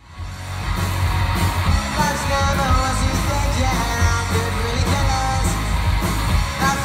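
Pop-punk band playing live: electric guitar, bass guitar and drum kit with a singer at the mic, fading in at the start.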